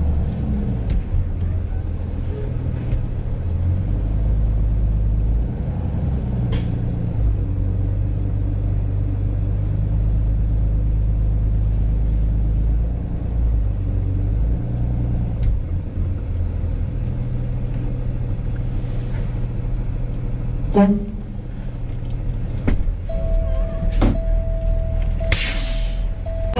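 Rollback tow truck's engine idling with a steady low rumble. About two-thirds through there is a sharp knock, and a second before the end a short hiss of air.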